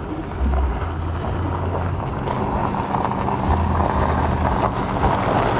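A vehicle engine running steadily, with a low, even hum.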